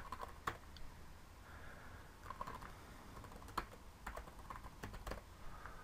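Faint typing on a computer keyboard: scattered, irregular keystrokes as text is entered into a form.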